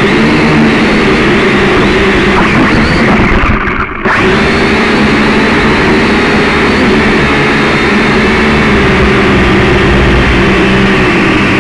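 A motor running loudly and steadily, its pitch wavering a little, with a brief drop-out just before four seconds in.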